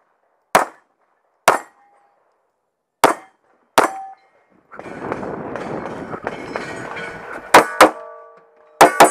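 Gunshots at steel targets: four sharp shots in the first four seconds, some followed by a short ring as a plate is hit. Then a stretch of rushing noise, and near the end a run of loud hits with the steel ringing on in several tones.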